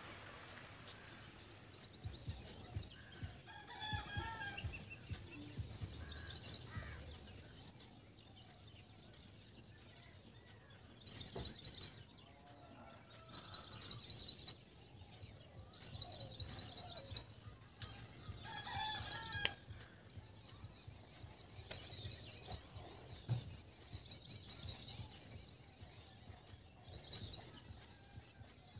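Faint bird calls in the background: two longer wavering calls, about four and nineteen seconds in, and a short rapid trill repeating every couple of seconds, over a steady high whine.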